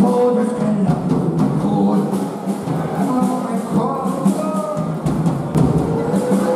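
Live band music: a male voice sings through a microphone over drums and cymbal hits.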